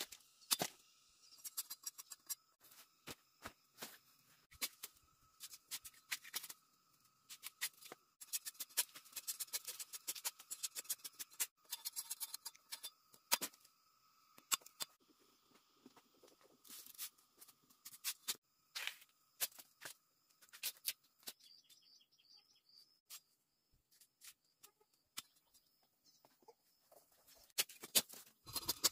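A machete chopping and slicing spiny palm stems: irregular sharp cuts and knocks in quick runs, separated by short pauses.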